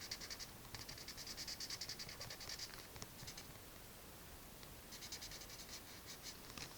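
Quick repeated scratching strokes of a drawing tool on paper, in two main runs with a short pause between them.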